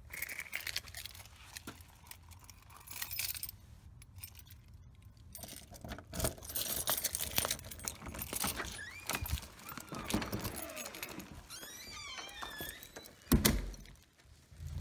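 A bunch of keys jangling and clicking as a key is worked into a doorknob lock, with a few short high squeaks, then a loud thump near the end.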